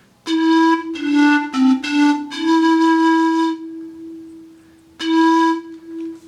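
Pan flute played with a full, clean tone: a short phrase of several notes stepping up and down, ending on a note held for about a second, then two more notes about five seconds in.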